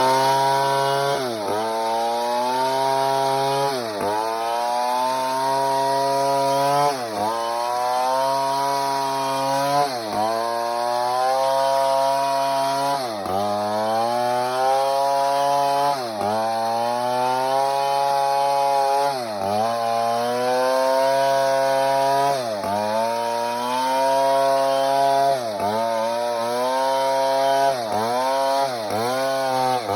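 Large two-stroke chainsaw, a Stihl MS 070, running at high revs while cutting timber. Its engine pitch sags and recovers every second or few as the cut loads it.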